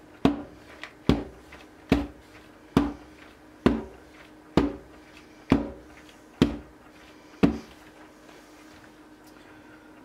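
Silicone loaf soap mould banged down on the tabletop again and again, nine knocks about one a second, settling the thick cold process soap batter; the knocking stops about three-quarters of the way through.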